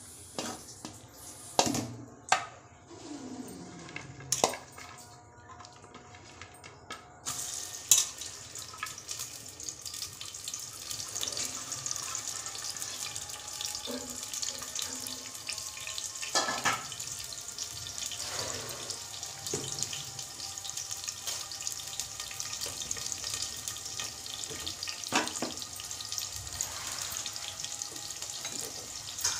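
Sliced onions sizzling steadily in hot oil in the open base of a pressure cooker, the sizzle starting abruptly about seven seconds in as they hit the oil. A few sharp knocks of utensil on the pot come before and through it.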